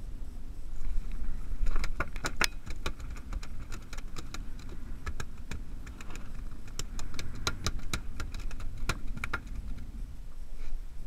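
Wind rumbling on the microphone, with scattered sharp clicks and knocks from about two seconds in as the rod, tackle and a landed fluke are handled on a small boat's deck.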